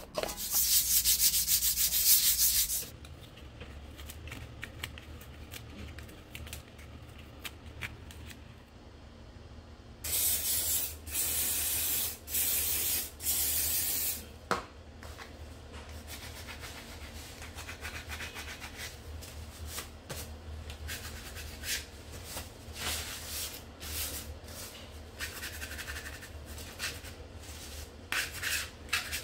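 A bristle brush sweeping hard over a plastered wall for about three seconds. About ten seconds in, an aerosol spray can is sprayed in three short bursts. Light scraping and wiping strokes of a plastic filler scraper follow.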